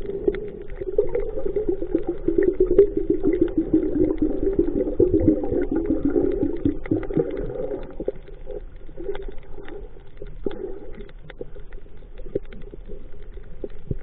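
Muffled, churning water sound with many small knocks, louder for the first eight seconds and fainter after.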